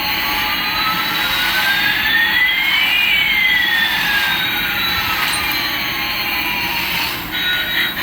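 Jet engine sound effect: a steady rushing hiss with two whining tones, one rising and one falling in pitch, crossing about three seconds in. It fades out near the end.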